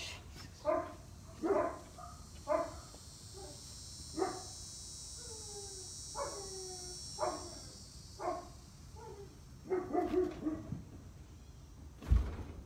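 A dog barking over and over, roughly once a second, some barks drawn out into whiny yelps. A single sharp thump near the end.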